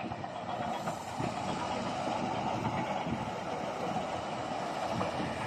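Steady rumble of a heavy diesel engine running at idle, with no distinct knocks or changes.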